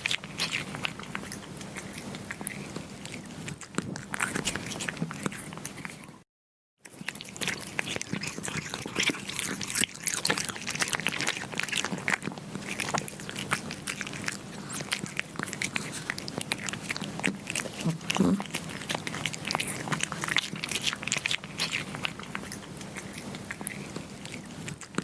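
Kittens chewing and biting on meat: a dense run of irregular clicking bites, broken by a half-second cut to silence about six seconds in.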